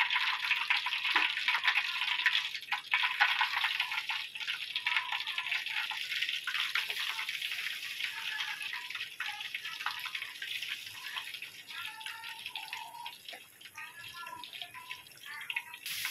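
Hot oil in a wok sizzling and crackling as pieces of flour-coated chicken deep-fry, the crackle gradually quietening toward the end.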